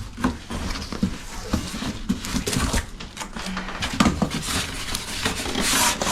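Gas range being unboxed: packaging rustling, with light knocks and clatter of the stove's parts and a louder rustle near the end.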